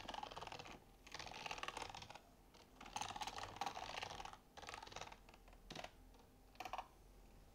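Typing on a computer keyboard: quick runs of keystrokes with short pauses between them, then a few single key presses near the end.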